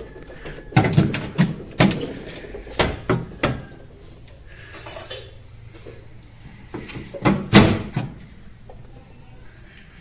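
Irregular knocks and clinks of hard household objects being handled, in two clusters: several sharp strikes from about a second in to three and a half seconds, then a few more around seven to eight seconds.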